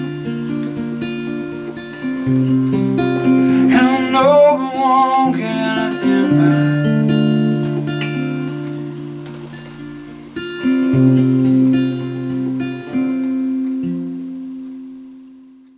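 Acoustic guitar playing the closing instrumental bars of a folk song: picked chords ringing, then a final chord left to ring and fade away near the end.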